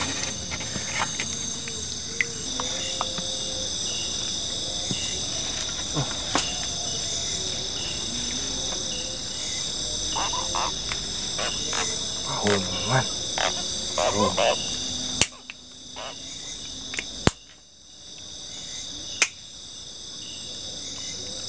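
Night-time insect chorus: a steady, high-pitched trill of several layered tones, with scattered clicks and handling rustles. Three sharp clicks stand out in the second half.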